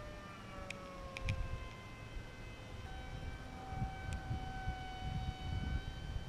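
Whine of a small RC plane's 2205 brushless electric motor spinning a three-bladed 5 x 4.5 propeller in flight. The pitch slides slowly down over the first two seconds, then holds at a higher steady pitch from about three seconds in as the throttle changes.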